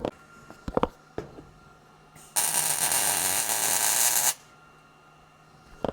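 Welding arc laying a tack weld on steel bracing: a loud, even crackling hiss for about two seconds in the middle, preceded by a few short clicks.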